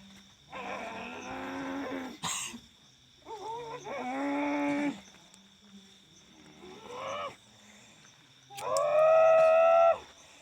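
A person's voice giving four long, animal-like cries without words, the last one loudest, from someone in a trance taken for possession by a tiger spirit.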